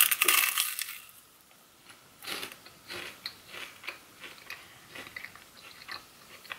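A person bites into a puffed rice cake spread with almond butter: a loud crunch in the first second. Then comes a run of softer crunching chewing sounds, about two or three a second.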